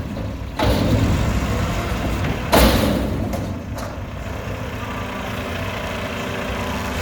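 Diesel engine of a Mack front-loader garbage truck running steadily, with a sudden loud thump about two and a half seconds in.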